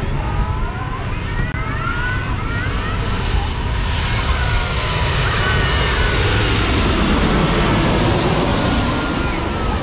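A narrow-body jet airliner on its landing approach passing low overhead, its engine noise building to a peak about seven seconds in, with whining tones that slide in pitch.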